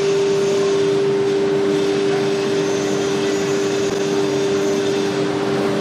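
ATC nesting CNC router and its dust-extraction system running, giving a steady whine over an even rush of noise.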